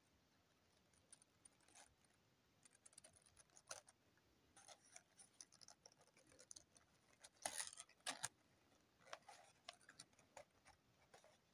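Folded paper crinkling faintly as it is handled, in scattered short crackles, loudest about seven to eight seconds in.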